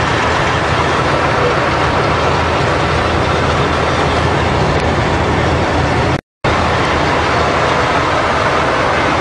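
Tanks and tracked armoured vehicles driving in a column: a loud, steady noise of engines and tracks, heard from aboard one of the moving vehicles. The sound cuts out for a split second about six seconds in.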